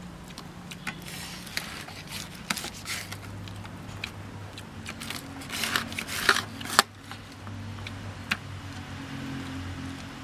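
A knife scraping and clicking against a stainless-steel plate as a big omelette is cut up, with irregular sharp clicks and a cluster of louder scrapes about six seconds in. A low steady hum runs underneath.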